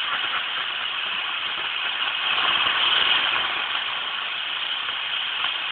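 A ground firework spraying sparks with a steady hiss that swells a little about halfway through, with no bangs.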